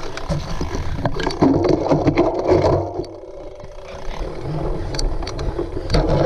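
Wind rumble on the microphone with rattling and scraping, as from a cyclocross bike ridden over rough ground; it eases briefly about halfway through.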